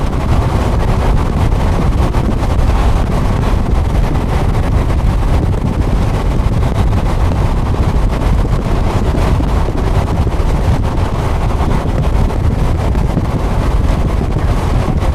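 Strong wind buffeting the camera's microphone: a loud, steady low rumble without pauses.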